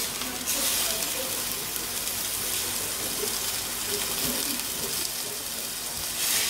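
Piece of red meat searing in a hot stainless steel frying pan, a steady sizzle that grows a little louder about half a second in as it is turned with tongs.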